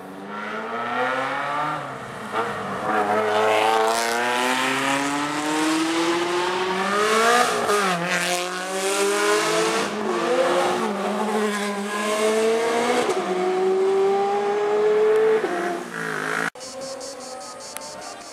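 Supercar engine accelerating hard: the revs climb and drop back several times as it changes gear. The sound cuts off suddenly about two seconds before the end, giving way to a quieter background.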